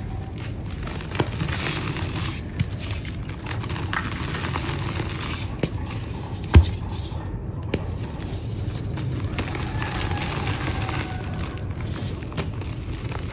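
Dry yellow mud dirt being crumbled: a steady crackling crunch with scattered small clicks, and one sharper knock about halfway through.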